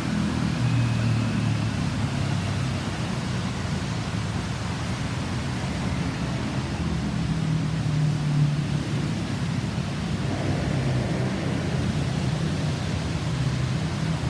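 Road vehicle engines running in traffic, a steady low rumble with no siren sounding.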